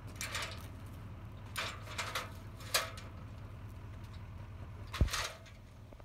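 Aluminium extension ladder clanking and rattling as it is set against the hay bales: a handful of short metallic knocks, the loudest a heavy thump about five seconds in.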